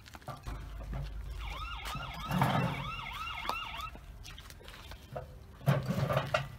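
Electronic siren yelping in quick repeated up-and-down sweeps, about three a second, for a couple of seconds in the middle, over a low rumble. A short louder knock comes near the end.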